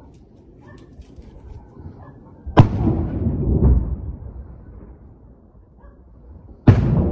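Two explosions about four seconds apart, the second near the end: each a sudden sharp blast followed by a low rumble that rolls on for about a second.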